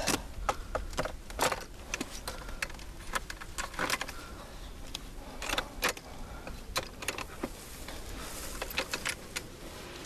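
Camera gear being handled on a tripod: irregular sharp clicks, knocks and small metallic rattles, a few of them ringing briefly, over a low steady rumble.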